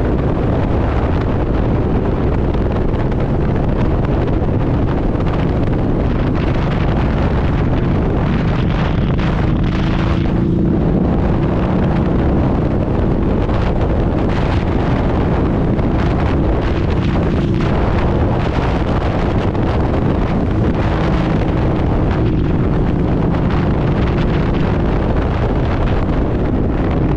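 Harley-Davidson V-Rod's liquid-cooled V-twin running at a steady cruising speed, mixed with strong wind rushing over the microphone.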